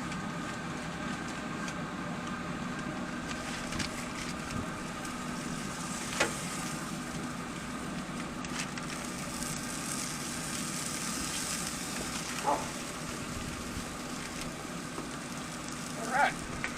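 Pellet smoker running: a steady hum and hiss from its fan and fire pot as it heats up, with a few faint clicks and knocks, about four over the stretch.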